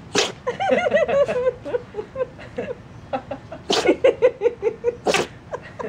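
Cavapoo puppy sneezing three times in quick succession, sharp bursts about 0.2 s, 3.8 s and 5.2 s in, the sign of compost sniffed up its nose. People laugh between the sneezes.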